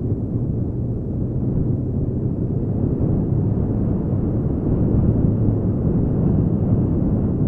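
1993 Honda Africa Twin XRV750's V-twin engine running at a steady cruise, a low even hum mixed with the noise of tyres on gravel and wind.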